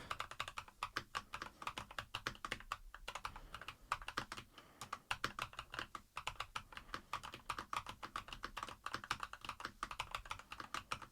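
Typing on a SKYLOONG GK980+ hot-swappable mechanical keyboard with Iceberg Rosa switches, aluminium top case and FR4 plate: a fast, steady run of key clicks, several keystrokes a second, with a couple of brief pauses.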